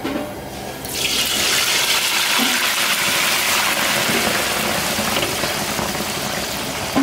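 Food frying in hot oil: a loud sizzle starts suddenly about a second in and then runs steadily.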